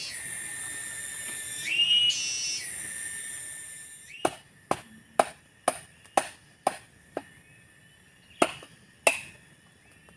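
Cicadas buzzing loudly with a high steady drone that swells twice and fades out about four seconds in. Then a machete chopping into a young coconut: about nine sharp strikes, roughly two a second, the last two after a short pause.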